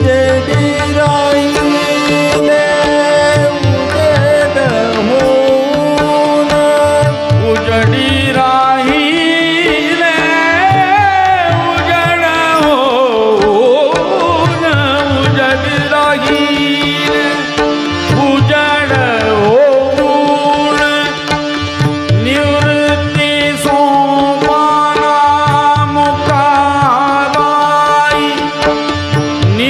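Marathi abhang devotional song performed live: a male singer holds long, gliding, ornamented notes over tabla strokes and a steady drone.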